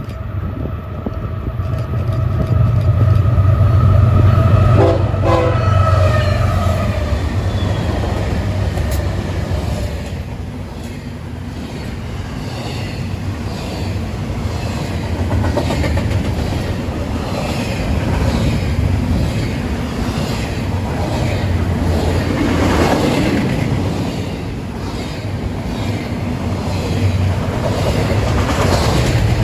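A train sounds its horn for several seconds, the horn's pitch dipping as it comes past. The horn then stops, and the low rumble and wheel clatter of the rail cars rolling by carry on.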